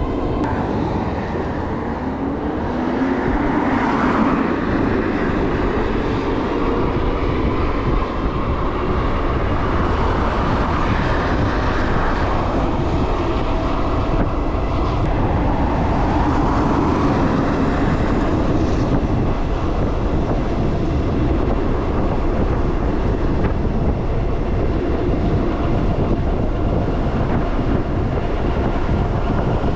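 Juiced HyperScrambler 2 electric motor whining under way, its pitch rising and falling with speed, under heavy wind noise on the microphone.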